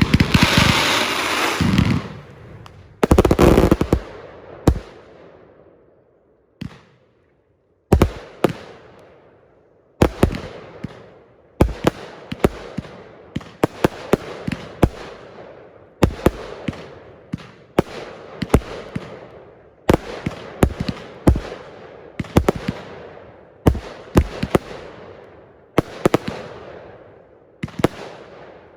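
Fireworks going off: sharp bangs, each followed by a fading crackle. A big burst opens, then a short lull a few seconds in, then volleys of several bangs about every two seconds.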